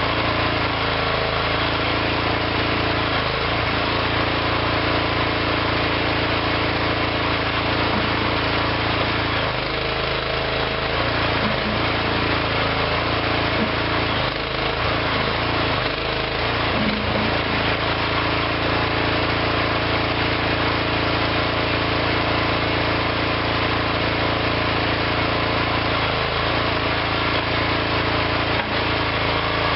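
Engine of a small hydraulic backhoe running steadily, with brief dips and wavers in pitch around the middle as it works.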